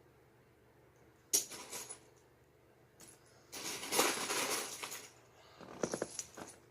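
Loose plastic Lego bricks clattering as a hand rummages through a pile. A short clatter comes about a second in, a longer, louder one around the middle, and a quick run of clicks near the end.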